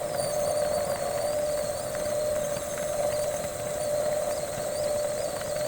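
Metal lathe running with a steady whine while a 3/8-inch reamer is fed into a drilled brass bushing, with a faint wavering high tone above it.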